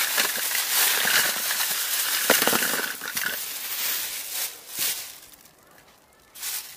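PVC pipe fittings being rummaged through by hand: dense plastic clattering and rustling for about four seconds, then a few scattered clicks.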